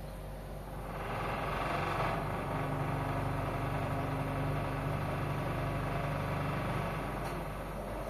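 Indesit front-loading washing machine running with its drum at rest between turns: a steady hum with a hiss. It rises about a second in and falls away shortly before the drum turns again.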